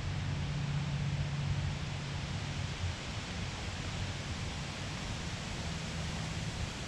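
Steady outdoor hiss of wind in the riverside trees, with a low steady hum underneath.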